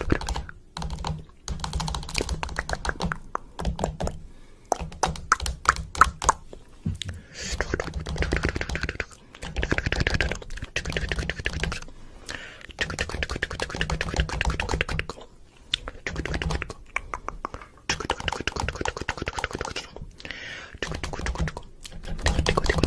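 Stretches of rapid clicking, each a second or two long, with short pauses between them.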